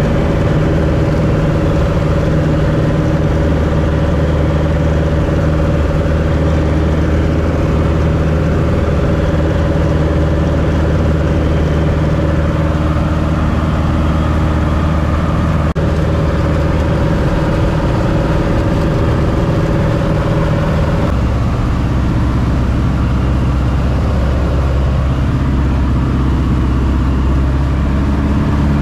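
Two-seat light aircraft's piston engine and propeller droning steadily, heard inside the cabin in flight. About two-thirds of the way through, the engine note drops to a lower steady pitch.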